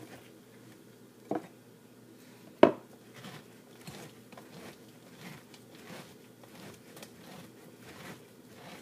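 Pineapple corer being twisted down through a pineapple: a knock about a second and a half in and a louder one a second later, then faint short strokes repeating about twice a second as the corer keeps turning through the fruit.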